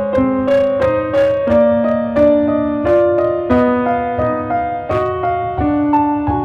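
Background music: a gentle piano melody with notes played about two a second.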